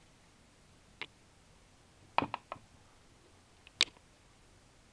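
Short sharp plastic clicks and taps from handling a plastic wristwatch and its packaging: one click about a second in, a quick run of three or four a little past two seconds, and one sharp click near four seconds.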